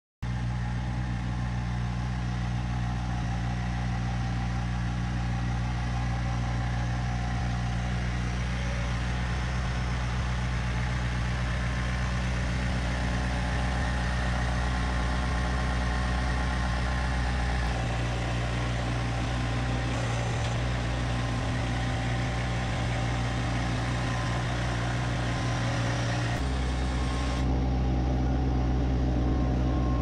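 A vehicle engine running steadily at low speed, its note shifting slightly partway through and again near the end.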